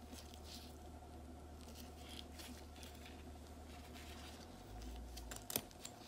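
Faint handling of small steel parts from an oil burner fuel pump in nitrile-gloved hands: soft rustling and scraping, with one sharp click about five and a half seconds in, over a low steady hum.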